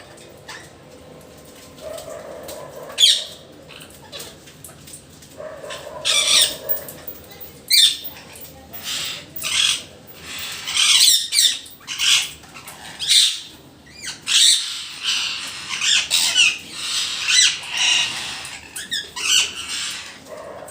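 Parrots squawking: a few harsh, shrill calls at first, then many in quick succession from about six seconds in.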